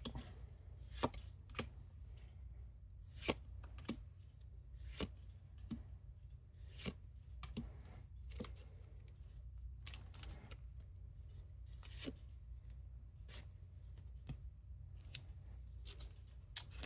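Pokémon trading cards being flipped through by hand, one card at a time, each card slid off the stack with a short, sharp snap. The snaps come irregularly, roughly once a second.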